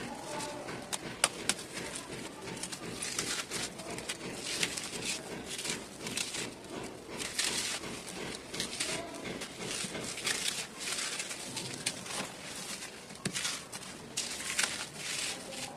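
Dry, gritty red dirt clods crushed and crumbled by hand, giving irregular crunching and crackling with sharp little snaps as pieces break and loose powder sifts down.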